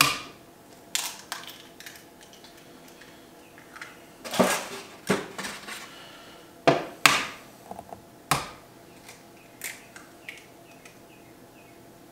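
Eggs cracked on a flat countertop and opened into a glass Pyrex dish: a series of sharp knocks and taps about a second apart, fading to faint ticks near the end.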